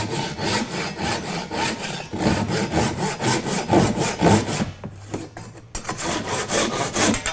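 Japanese pull saw crosscutting a square timber by hand: quick, even rasping strokes, about four a second, with a brief pause about two-thirds through before the strokes resume.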